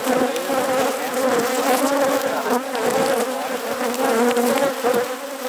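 Honeybees buzzing around an opened hive: a loud, continuous hum of many wavering, overlapping wingbeat tones.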